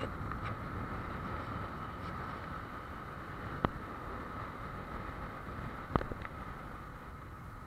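Steady rush of wind and road noise on the microphone of a moving motorcycle, with two sharp clicks about three and a half and six seconds in.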